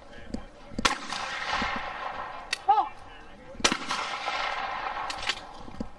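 Two loud trap-shooting shotgun reports, about a second in and about three and a half seconds in, each trailing off in an echo across the field. The second follows a short shouted call for the target by about a second, and a fainter shot from elsewhere on the range falls between them.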